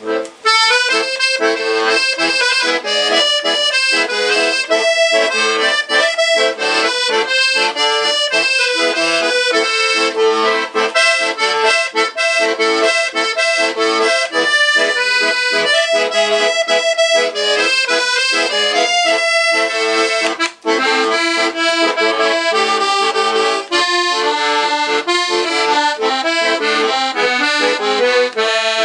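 Accordion playing an instrumental folk tune in quick, short notes, with no singing.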